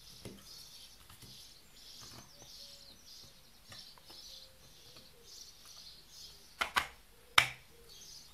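Light clicks, then a sharp double knock and a louder single knock near the end, as the 3D-printed plastic top is handled and set onto the clock. Faint high chirping repeats about twice a second in the background.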